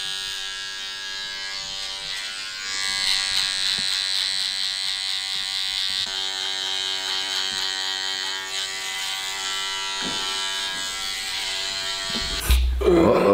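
Electric hair trimmer buzzing steadily while lining up the neckline, a little louder from about two and a half seconds in. A low thump near the end.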